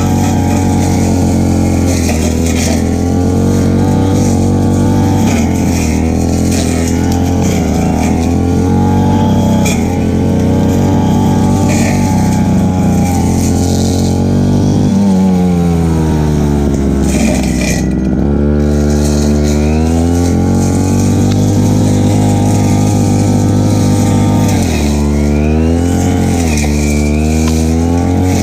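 Stihl FR3001 backpack brush cutter's two-stroke engine running at high speed while cutting grass. Its pitch drops and recovers twice, about halfway through and again near the end.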